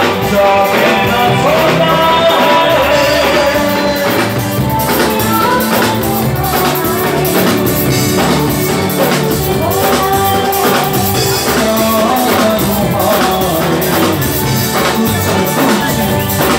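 Live song performance amplified through microphones: singing over band accompaniment with a steady drum beat.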